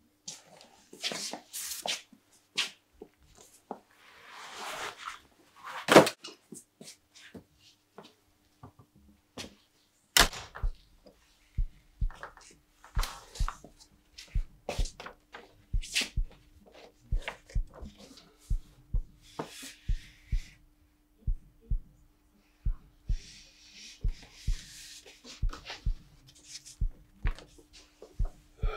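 A large sheet of paper rustles as it is handled, among scattered light knocks and one sharper knock about six seconds in. From about ten seconds in, a slow, low beat like a heartbeat sets in, about three beats every two seconds, over a faint steady hum.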